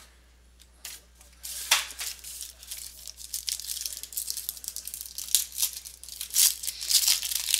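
Wrapper of a sports-card pack being torn open and crinkled: a quick run of crackly rips and crumpling that starts about a second and a half in.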